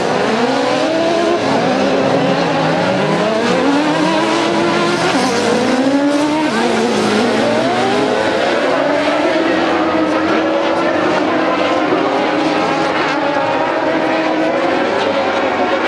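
Several autocross buggies racing together on a dirt track, their engines revving up and down through the gears, with several engine notes overlapping.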